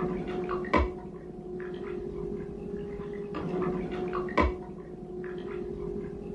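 Underwater scuba breathing: two bursts of bubbling and crackle about three and a half seconds apart, each with a sharp click, over a steady hum.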